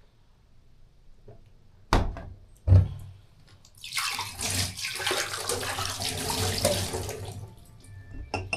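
Two knocks, the second louder, then a water tap runs for about three and a half seconds, a steady hiss of water, and is turned off.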